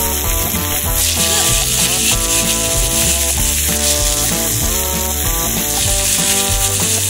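Ground beef sizzling as it fries in a cast-iron skillet on a gas camp stove, over background music with steady sustained notes.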